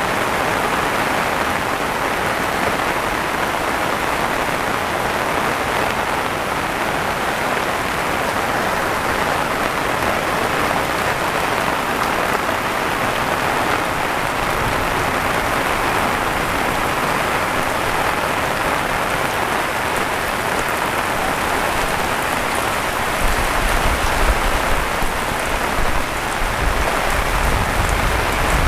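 Heavy rain falling steadily, a dense hiss of drops. Near the end a low rumble comes in under the rain.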